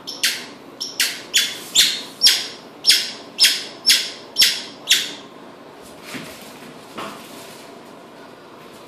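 A squeaky toy tennis ball squeezed by hand about ten times, roughly two squeaks a second, each one short and high-pitched. Two fainter knocks follow about a second apart.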